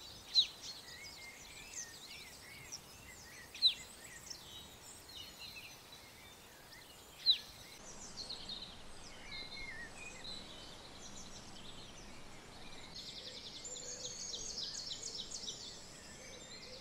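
Wild birds chirping and twittering, with three loud, sharp downward-sliding chirps about three and a half seconds apart. Later an insect's rapid, pulsing high chirr comes in.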